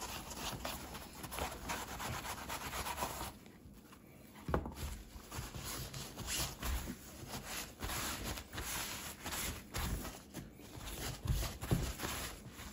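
Clear plastic window of a stroller canopy being rubbed and wiped by hand with soapy cleaner, in repeated scratchy strokes. There is a brief lull about a third of the way in, ending in a soft bump, before the rubbing resumes.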